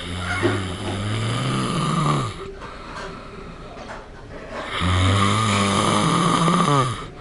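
A sleeping man snoring loudly: two long snores of about two seconds each, with a quiet pause between breaths.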